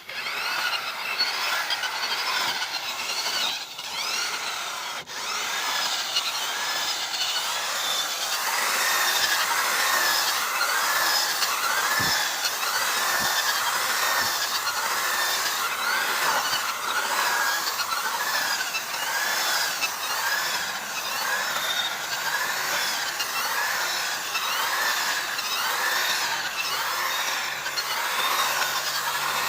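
Steady back-and-forth sawing, with strokes repeating about once a second.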